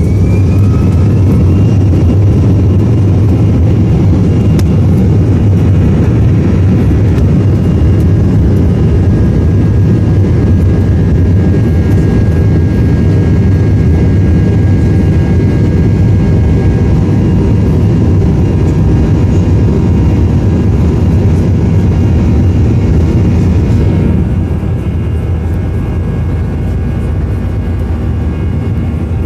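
Jet airliner engines heard from inside the cabin during takeoff. A rising whine spools up to takeoff thrust at the start, followed by a loud, steady roar and rumble with a high whine over it. About 24 seconds in the hiss drops away and the sound becomes a little quieter.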